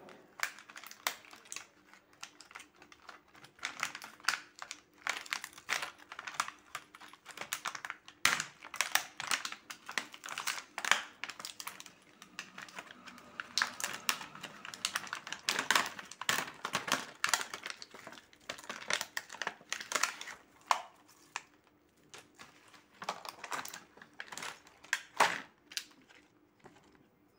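Stiff clear plastic blister packaging being pried and peeled open by hand, with a dense, irregular run of crackling, crinkling and clicking that thins out near the end.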